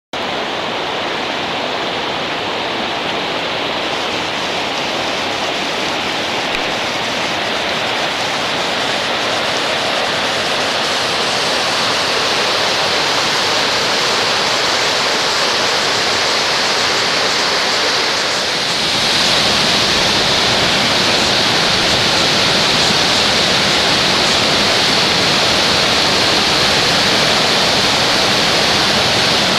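Asama Ōtaki waterfall crashing in a steady, loud rush of falling water. It grows louder and fuller about two-thirds of the way through.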